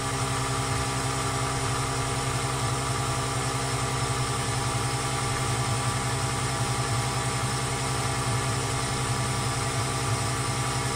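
Electric oil extraction pump running with a steady hum, sucking hot engine oil out of a Yanmar 3YM30 diesel's sump through the dipstick tube.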